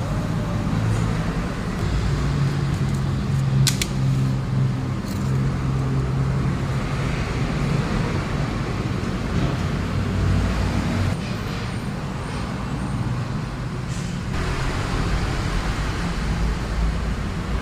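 Steady low mechanical hum, like a motor vehicle running, over general workshop noise, with a sharp click about four seconds in.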